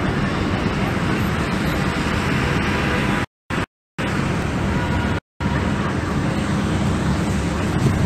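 Steady low roar of city street noise, traffic mixed with wind rumble on the phone microphone, broken by three short gaps of total silence between about three and five seconds in.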